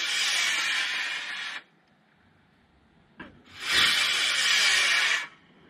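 Two model rocket motors burning one after the other, each a loud harsh hiss lasting about a second and a half that stops abruptly at burnout. A sharp click comes just before the second motor lights.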